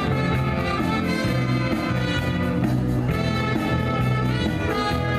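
Brass band playing dance music live, horns over a steady bass line.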